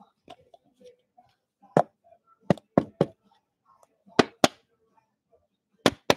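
Sharp plastic clicks and taps from a trading card being handled in a clear plastic holder and set against top loaders, about eight in all, several in quick pairs.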